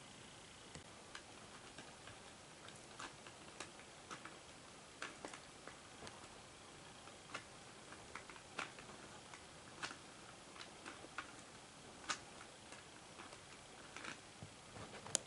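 Light, irregular clicks and ticks of a plastic collectible figure and its cage wheel being handled, one to two a second, with a sharper click near the end.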